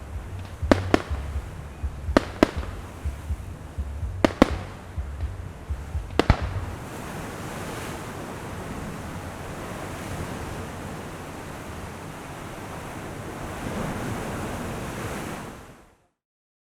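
A series of sharp bangs, mostly in close pairs a few tenths of a second apart, over a low rumble, followed by a steady rushing noise that swells briefly and then cuts off abruptly.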